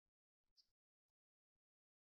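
Near silence, with a few faint short handling noises, the loudest about half a second in.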